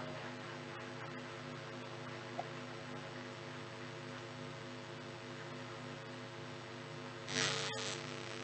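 Steady electrical mains hum from the hall's sound system, with a single sharp click a little over two seconds in and a short burst of noise near the end.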